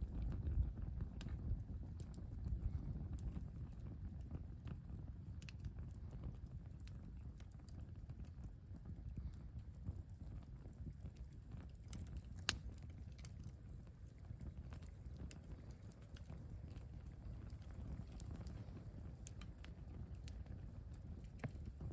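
Wind buffeting the microphone as a steady low rumble, with the scattered sharp crackles and pops of a wood campfire; one pop about twelve seconds in is louder than the rest.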